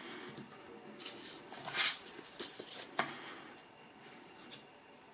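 A vinyl record in a black paper inner sleeve being handled and turned over: several papery rustles and swishes, loudest a little before two seconds in, a sharp tap at about three seconds, and another short rustle near four seconds.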